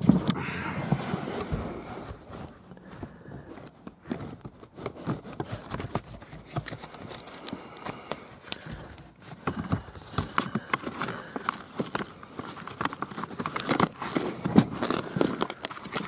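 Irregular rustling and clicking of hands working under a car seat at the chewed seatbelt and airbag wiring harness and its plastic connector, louder in the first second and busier in the second half.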